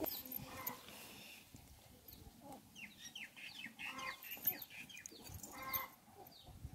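Chickens clucking and peeping, many short, high calls that fall in pitch, faint.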